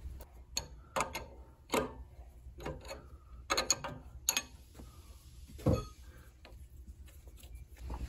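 Adjustable wrench turning a metal fitting on a compressor's pressure switch: scattered light metallic clicks and knocks as the jaws seat and the fitting is worked loose, with one heavier knock about six seconds in.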